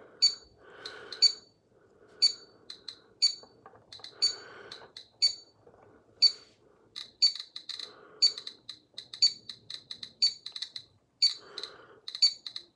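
GQ GMC-500+ Geiger counter giving short, high electronic beeps at irregular intervals, coming faster toward the end. Each beep marks a detected count from the uranium ore held against it, and the count rate is rising.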